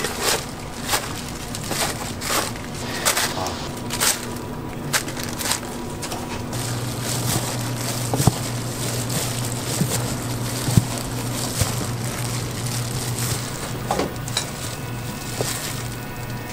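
Food-stall kitchen work: a quick series of sharp knocks and clicks, like utensils or chopping, for about six seconds. A steady low hum then sets in, with a few scattered clicks over it.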